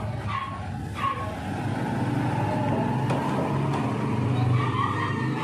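A dog yipping a few short times, twice near the start and once near the end, over a steady low hum.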